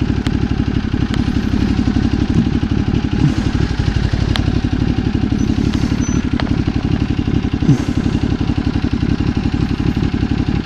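Ducati Multistrada 1200's V-twin engine running at low, steady revs.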